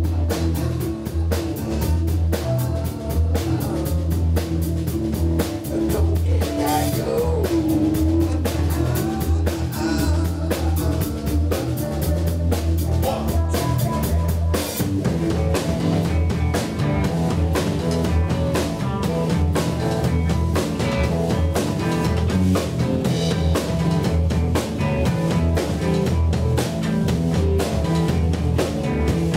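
Rock band playing a song in rehearsal: electric bass, drum kit and keyboards together, with a steady driving drum beat and a voice singing over it at times.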